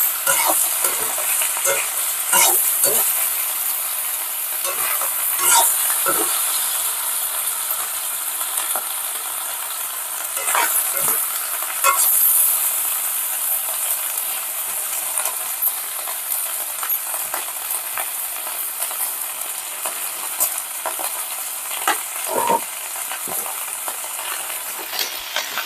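Pieces of goat skin sizzling steadily as they fry in hot oil in an iron kadai, stirred now and then, with scattered clicks of the utensil against the pan.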